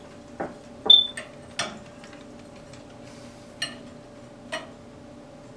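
A copper water pipe being handled against plumbing fittings, giving a handful of light separate clicks and knocks. One sharper metallic tap with a brief ring comes about a second in. A faint steady hum runs underneath.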